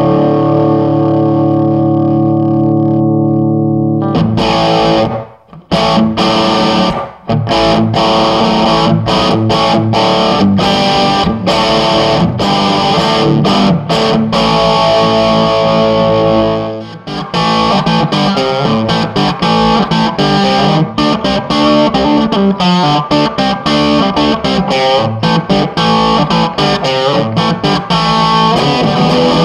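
Distorted electric guitar played through a Marshall Lead 12 solid-state 12-watt head and two 1x10 cabinets, set to an overdriven crunch. It opens with a chord left ringing for a few seconds, then moves into choppy rock riffing with short stops and another held chord midway.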